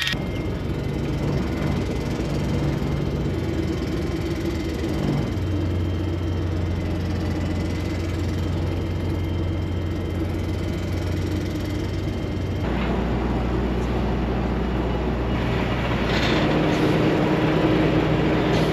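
Semi truck's diesel engine running while the truck drives slowly through a yard, heard from inside the cab. Its note changes abruptly twice, about five and about thirteen seconds in.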